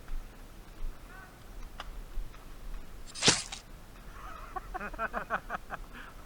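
A short, loud burst of hissing noise about three seconds in, then a person's voice in a quick run of short pulses near the end.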